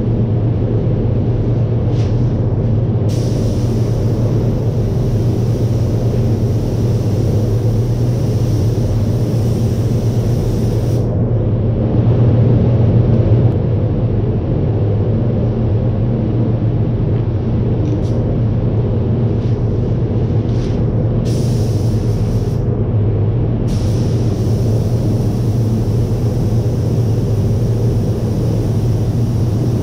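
Paint spray booth ventilation running: a steady, loud rush of moving air with a low hum underneath.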